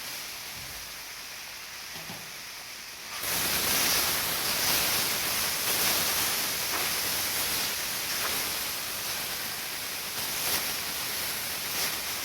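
Mango pulp going into hot ghee-roasted semolina and sugar in a pan: a fainter hiss from the pan, then a sudden, much louder sizzle about three seconds in that holds steady.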